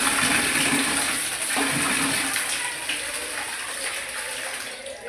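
Water rushing from a bathroom plumbing fitting, starting suddenly and easing off gradually.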